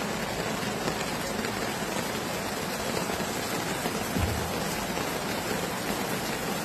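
Steady rain falling, heard as an even hiss with no distinct drops or rhythm.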